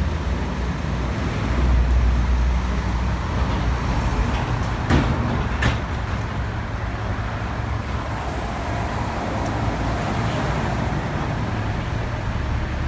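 Motor vehicle running: a steady low rumble with road noise, swelling about two seconds in. Two short clicks or knocks come about five seconds in.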